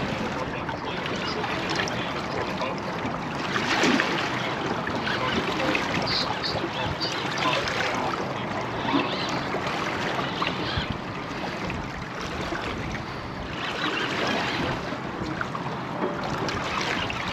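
Choppy water lapping and splashing against a small boat's hull, with wind on the microphone, a steady rush that swells briefly a few times.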